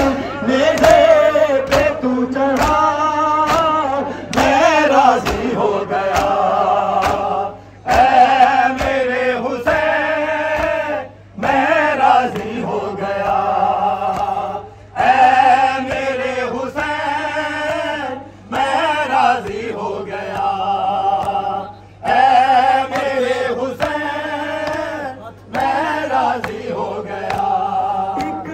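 A male voice sings an Urdu nohakhwani lament through a horn loudspeaker, in phrases about three and a half seconds long with short breaks between them. Under the voice runs a steady hum, and sharp slaps recur in a regular beat: mourners beating their chests (matam) in time.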